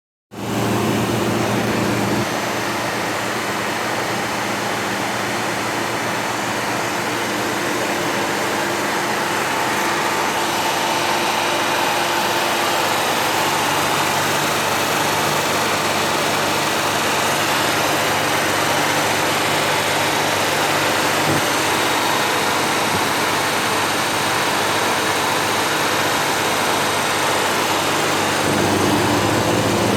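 Elmo Rietschle VC 300 rotary vane vacuum pump running steadily during a post-repair test, a constant machine hum with a change in its low tones about two seconds in and again near the end.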